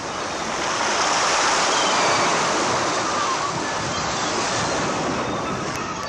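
Surf washing onto a sandy beach as a steady rush of noise, swelling loudest as a wave breaks about one to two seconds in, then easing.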